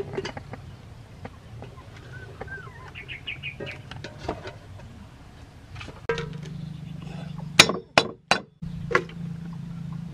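Kitchenware clinking around an aluminium cooking pot: scattered light taps, then four sharp knocks in the second half, the first the loudest. A short run of chirps sounds between two and four seconds in.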